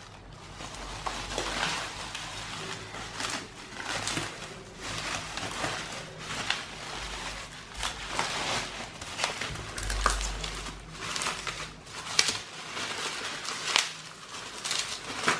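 Plastic packaging crinkling and rustling as hands unwrap a part from a clear plastic bag, with irregular sharper crackles throughout.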